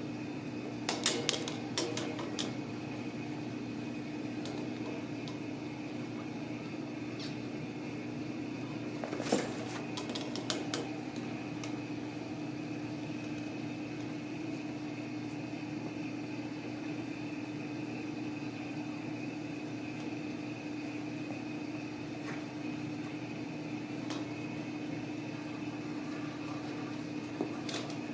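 Kittens playing on a tile floor: scattered short clicks and knocks, bunched about a second in and again around nine to eleven seconds, over a steady mechanical hum.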